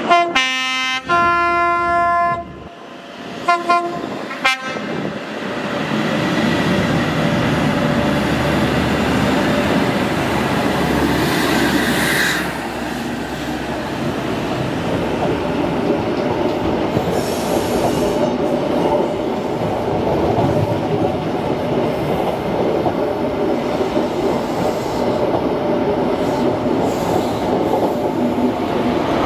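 High Speed Train (Class 43 diesel power cars with Mark 3 coaches) sounding three or four horn blasts in the first few seconds, then passing close by: the diesel power car's engine runs under the steady rattle and clatter of the coaches' wheels on the rails, with a brief wheel squeal about twelve seconds in.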